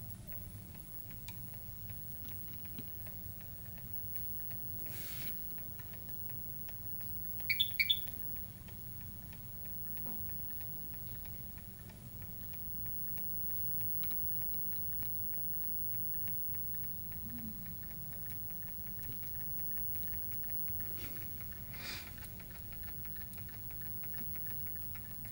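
Tiny AliExpress brushless motor and drivetrain of a small RC rock crawler running at a slow crawl: a faint steady whir with rapid, even ticking as the shaft turns, which the owner puts down to a bent motor shaft. A short cluster of sharper clicks stands out about a third of the way through.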